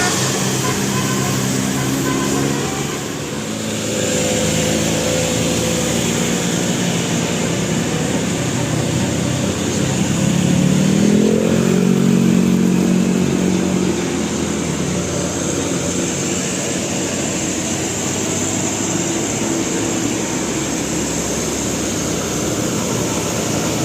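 Large vehicle engines and road traffic running steadily, with an engine revving up in a rising pitch about ten seconds in.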